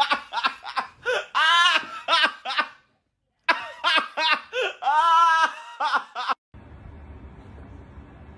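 High-pitched laughing in rapid repeated bursts, in two runs split by a moment of dead silence. About six and a half seconds in it stops and a steady low hiss remains.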